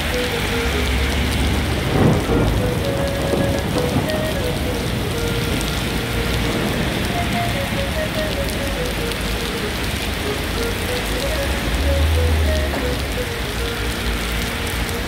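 Steady heavy rain falling on wet pavement and road, with a brief louder swish about two seconds in and a low rumble near the end. A faint melody plays underneath.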